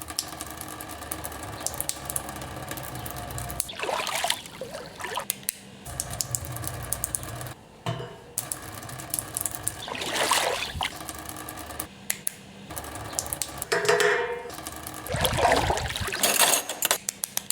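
Water running or pouring in short spells, three times, among many small clicks and clinks.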